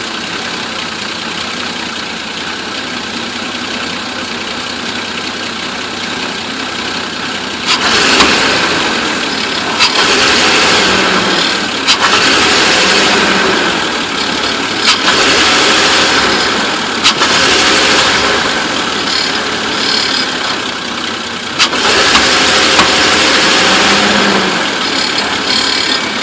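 A van engine with a misfire: it runs steadily for several seconds, then is revved up four times. Sharp cracks come at the start of several of the revs.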